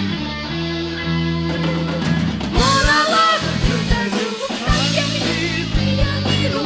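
Band music in a rock arrangement of a folk song, an instrumental passage between sung lines: guitar over sustained bass and regular drum hits, with a wavering lead melody in the middle.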